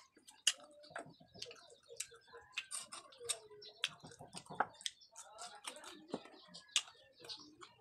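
Close-up mouth sounds of a man eating papaya by hand: an irregular run of sharp, wet lip smacks and chewing clicks.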